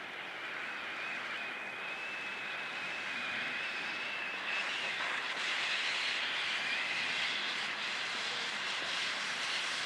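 Firework fountain burning with a continuous hiss of spraying sparks, with a steady high whistle-like tone in the first half, growing gradually louder; no bangs.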